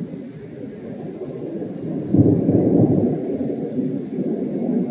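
Thunder rumbling: a deep rumble that swells sharply about two seconds in and rolls on.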